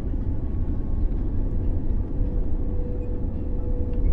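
Boeing 787-9 cabin noise on final approach with flaps set and gear down: a steady low rumble of engines and airflow, with a faint steady whine that appears about halfway and creeps slightly higher. At the very end the rumble suddenly grows much louder.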